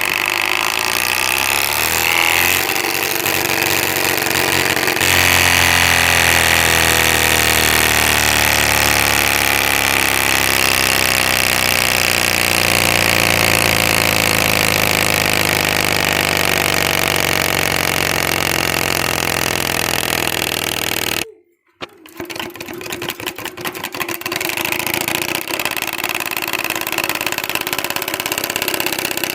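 Plastic bottle fitted to a bicycle being struck by the turning spokes, making a loud, rapid motorcycle-like rattle. Its pitch slowly falls as the wheel slows. After a sudden brief cut-out about two-thirds of the way in, it continues as a rougher clatter.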